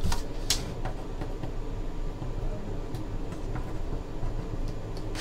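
Steady low room hum with a few sharp clicks of a computer mouse, the loudest about half a second in.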